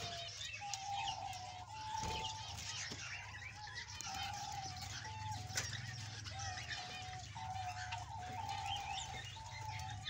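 Budgerigars chattering with a dense run of quick chirps and warbles. Underneath runs a series of clear held notes that step up and down in pitch, with a steady low hum.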